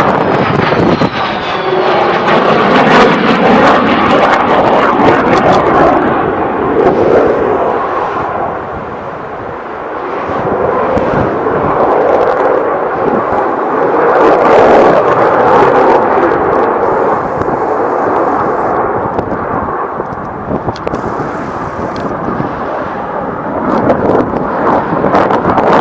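Jet airplane flying overhead, its engine noise loud and continuous, easing off about a third of the way in and again later before building back up.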